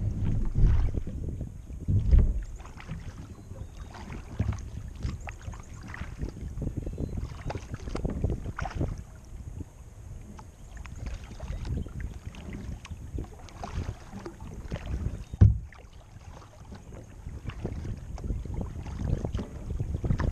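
A kayak being paddled: irregular water splashes and drips from the paddle strokes with occasional knocks, over a low rumble, and one sharper knock about fifteen seconds in.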